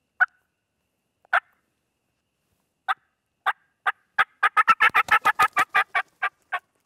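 Hen turkey fly-down cackle imitated on a mouth call. A few widely spaced notes speed up into a rapid run of cackling, about five notes a second, which slows for the last couple of notes and stops.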